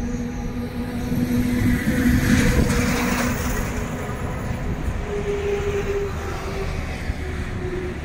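Steady road and engine noise of a car driving along a motorway, with a hum from tyres and engine. A container lorry passes close alongside, its noise swelling louder about two to three seconds in and then easing off.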